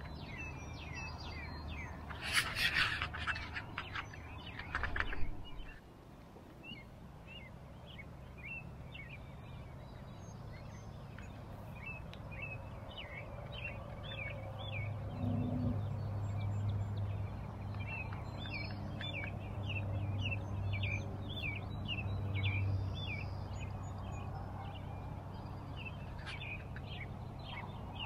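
Many small birds chirping in a dawn chorus, with quick, high calls overlapping throughout, over a low steady hum. In the first five seconds there are a few loud scratchy noises from a hand rubbing on the action camera.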